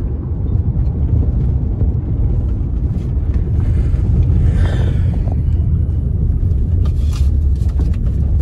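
Car driving on the highway, a steady low rumble of engine and road noise. About halfway through a brief hiss rises and falls over it.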